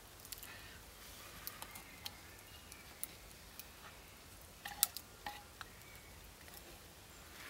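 Carved wooden spoon knocking and scraping against the inside of an earthenware pot as soup is scooped out: scattered light clicks, the loudest a quick pair about five seconds in.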